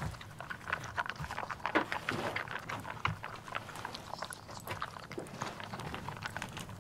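Boston Terrier eating dry kibble from a bowl: a fast run of irregular crunches and chomps that thins out over the last few seconds.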